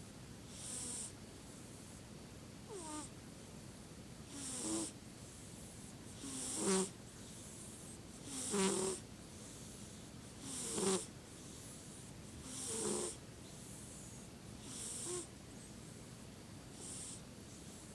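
Snoring, one snore about every two seconds, nine in all: louder through the middle and fainter toward the end, some with a fluttering rattle.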